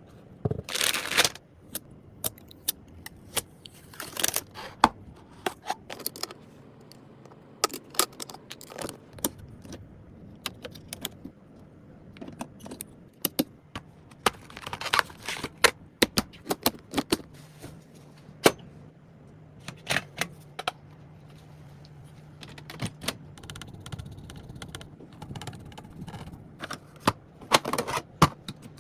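Computer parts being handled and fitted during a PC build: irregular sharp clicks, taps and short scrapes of plastic and metal parts. A faint low hum comes in about halfway through.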